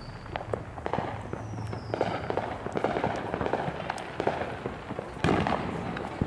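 Fireworks going off: a rapid, irregular crackle of many pops and bangs, with a louder burst about five seconds in.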